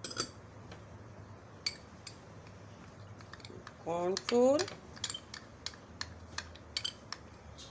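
Metal spoon clinking against a small glass bowl and the mixing bowl while cornflour is spooned onto raw chicken: a string of light, irregular clicks.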